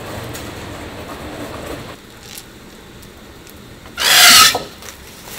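Plastic packaging rustling: one loud, short rasping crinkle about four seconds in, over a low background hum.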